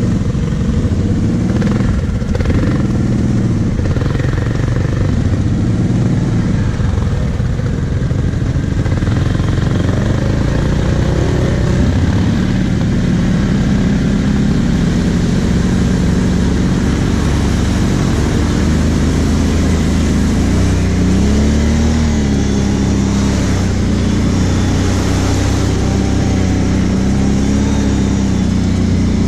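Kawasaki KVF 750 Brute Force ATV's V-twin engine running while riding a muddy trail, heard from the rider's seat, its pitch rising and falling repeatedly with the throttle.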